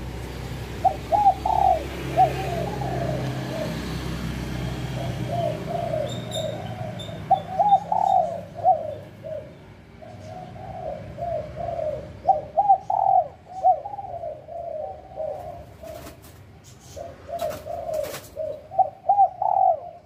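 Spotted dove cooing over and over, its coo phrases coming in runs with short pauses between them.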